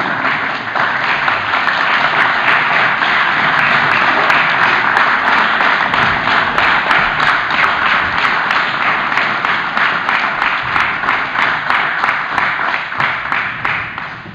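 Audience applauding: dense, steady clapping that builds up about a second in and tapers off near the end.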